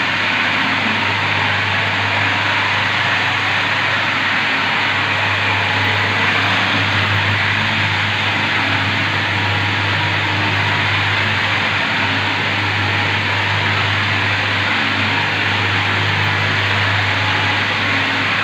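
Arm-mounted marble polishing machine running, its spinning polishing head rubbing over wet marble tiles: a steady motor hum under a rough, even grinding hiss.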